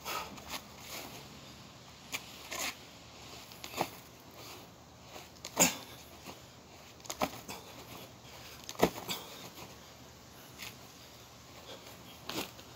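Scattered short knocks and rustles of a loaded rucksack being gripped, lifted and lowered during lifting reps. The two loudest knocks come about halfway and two-thirds through.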